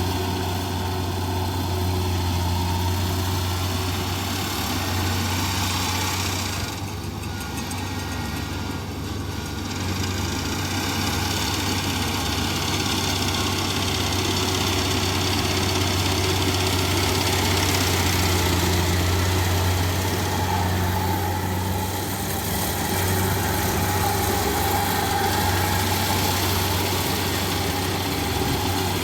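Rice combine harvester running, its engine a steady low hum that dips slightly about seven seconds in before coming back up.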